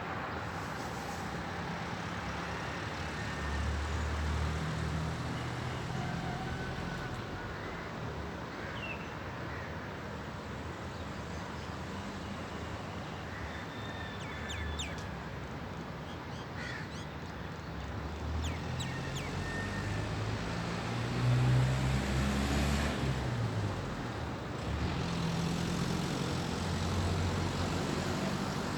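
Steady traffic hum with engine rumbles that swell and fade, and scattered short bird calls in the middle.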